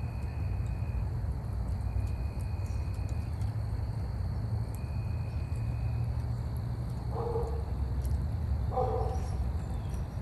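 A steady low rumble with two short animal calls, about a second and a half apart, in the second half.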